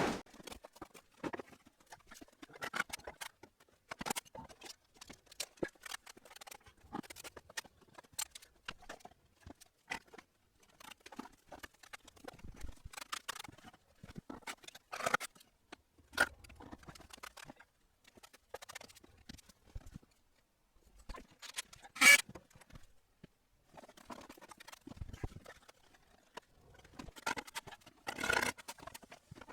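Bricklaying work: irregular light taps, knocks and scrapes of bricks and mortar being laid, with one sharper knock about two-thirds of the way through.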